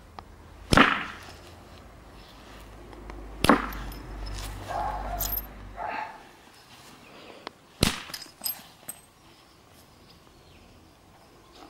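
Percussion blows on a flint core being knapped: three sharp strikes a few seconds apart, followed by a couple of lighter taps after the last one.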